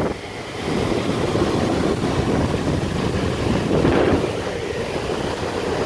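Steady rushing airflow and rumble from a Carrier heat pump's air handler running with its indoor coil iced over, a sign that the system is low on refrigerant.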